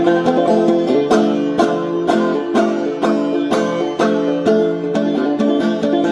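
Clawhammer-style five-string banjo played with the usual hand angle, the down-strokes landing with sharp percussive clicks about twice a second: the nail-and-skin 'cluck' on the banjo head that this playing angle produces.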